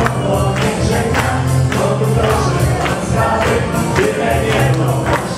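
Upbeat dance music from a wedding band, with singing over a steady, even beat.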